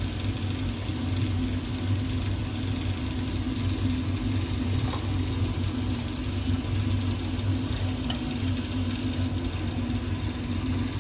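Baxi Potterton Promax 28 combi boiler running in hot-water mode, a steady low hum with a faint hiss. The newly fitted diverter valve motor makes no noise.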